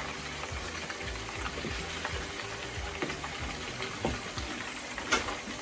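Minced-mutton kababs frying in hot oil in a nonstick pan: a steady sizzle, with light clicks of wooden utensils turning them and a sharper knock about five seconds in.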